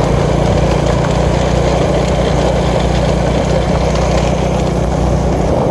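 Motorcycle engine running at a steady speed, with a constant low hum and wind-like rush over it.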